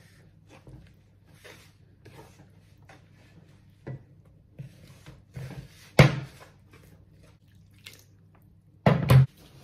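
Hands rubbing and working flour and semolina in a wooden bowl: a run of soft, uneven scrapes and rustles. A sharp click comes about six seconds in, and a short, loud burst near the end.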